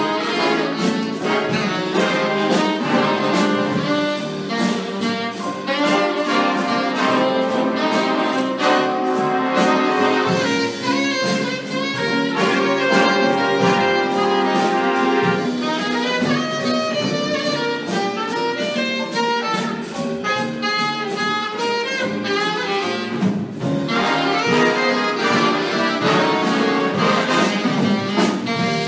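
Jazz big band playing, with saxophones, trumpets and trombones over bass and drums. Recorded from the room rather than through a sound board.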